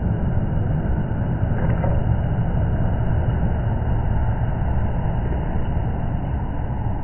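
Pickup truck driving past close by: a steady low engine and road rumble.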